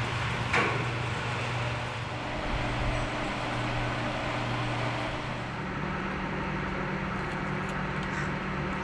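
Steady whirring of electric fans and an evaporative air cooler, with a low motor hum that steps up in pitch about halfway through. A single short knock sounds just after the start.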